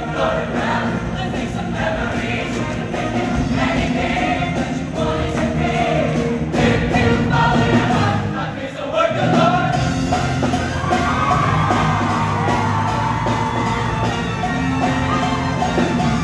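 A show choir singing with musical accompaniment, with a brief drop about nine seconds in.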